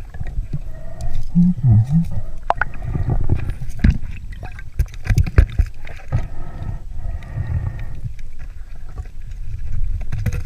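Scuba diver breathing through a regulator underwater: hissing inhalations through the demand valve alternate with low, rumbling bursts of exhaled bubbles, with a few sharp clunks from hands handling a sunken metal cash register.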